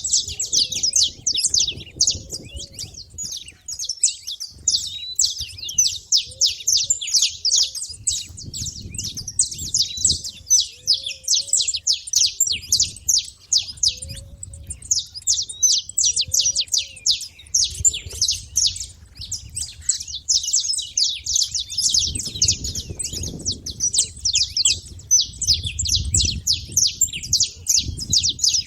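Saffron finches chirping, a dense run of rapid high chips and trills that barely pauses, with brief lulls about four and twelve seconds in.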